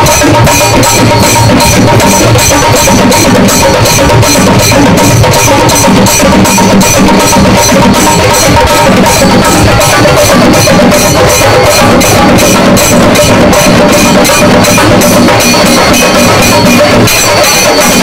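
Loud festival procession music: a fast, even drumbeat with a few held pitched notes above it.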